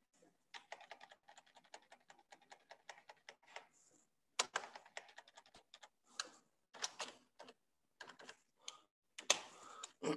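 Computer keyboard typing: runs of quick key clicks with short pauses between them, as a line of text is deleted and retyped.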